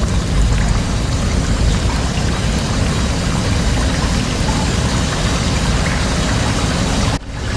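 Steady, dense rumble and hiss like rushing water mixed with heavy machinery, dropping out for a moment near the end.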